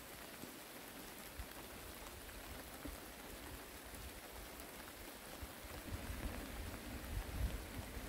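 Steady hiss and patter of light rain falling on water and vegetation. In the second half, irregular low rumbling gusts come in, the loudest near the end.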